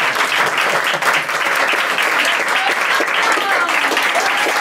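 Audience and cast applauding: steady, dense clapping from a small theatre crowd.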